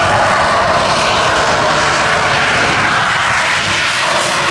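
Steady, loud engine noise from two low-flying aerobatic airplanes and a jet-powered truck racing along the runway with flame shooting from its exhaust.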